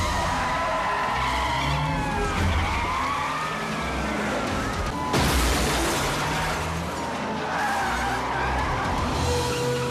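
Movie car-chase sound effects: cars' tyres squealing in several curving screeches over engine rumble, and a sudden loud burst of noise, like a crash, about five seconds in.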